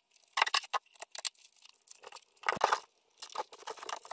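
Irregular crackling, crinkling and clicking of plastic dash trim being handled and fitted, with a louder crunch about two and a half seconds in.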